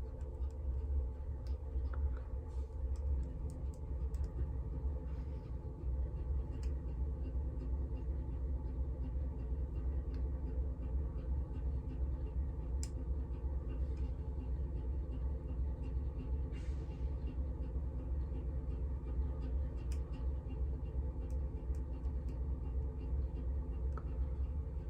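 Steady low hum and rumble of background noise, unchanging throughout, with a few faint scattered ticks.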